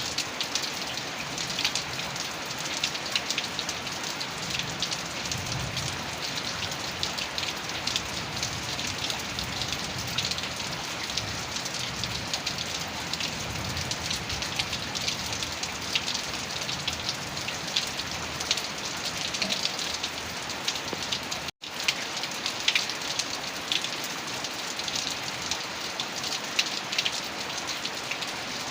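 Heavy rain falling steadily, a dense patter of drops hitting a surface. It cuts out for an instant about three-quarters of the way through, then carries on unchanged.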